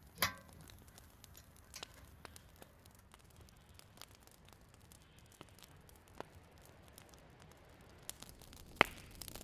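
Wood fire crackling: scattered pops and snaps over a steady low hiss, with one sharp, loud snap near the end.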